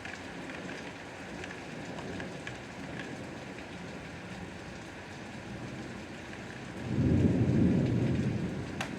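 Steady rain falling, with scattered drop ticks. About seven seconds in, a loud low rumble swells and fades over a second or two, and a single sharp tick sounds near the end.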